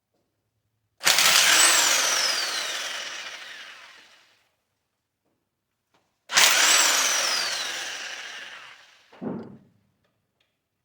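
Power tool run in two bursts, each starting abruptly and fading away over about three seconds, with a falling whine inside it, while the nut welded onto a stripped water pump pulley bolt is worked to back the bolt out. A short, lower sound follows just after the second burst.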